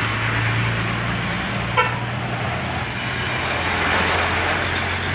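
Heavy truck diesel engine running steadily amid road traffic noise, with one short horn toot about two seconds in.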